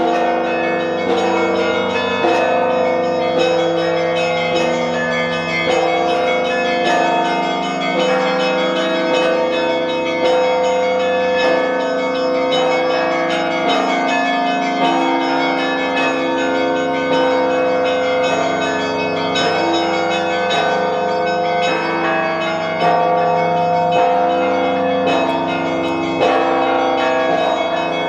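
Russian Orthodox church bells ringing together: many bells of different pitches struck in a quick, continuous overlapping rhythm, each stroke ringing on under the next.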